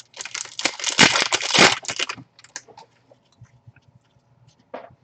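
Crinkly foil trading-card pack wrapper being torn open, a dense crackling rustle for about two seconds, then a few faint rustles and one short crinkle near the end.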